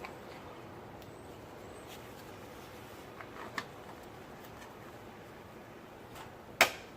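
Faint steady hiss with a few light clicks about midway, then one sharp click near the end, from hands working the plastic wiring-harness cover and its screws.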